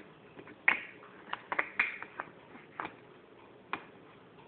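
Puzzle pieces knocking and clicking against a table as they are handled: about eight short, sharp knocks at uneven intervals, several bunched together a little over a second in.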